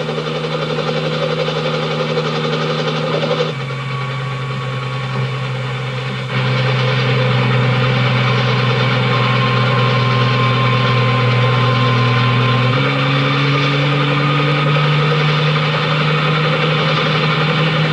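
Helicopter engine and rotor drone, steady and loud, jumping suddenly to a different pitch and loudness three times.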